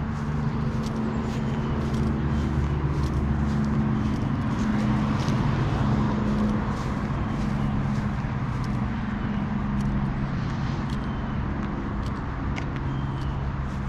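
An engine idling steadily, with faint regular ticks about twice a second, like footsteps on grass.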